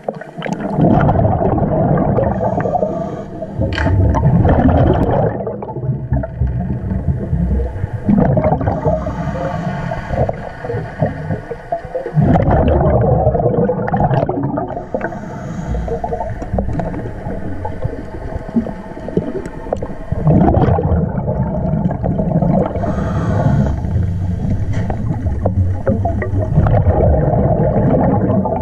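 Scuba diver breathing through a regulator underwater: a hissing inhale and a loud bubbling exhale, the cycle repeating about every four seconds.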